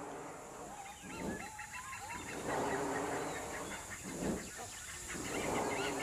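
Great hornbill giving honking calls, with other birds chirping and a steady high insect drone behind.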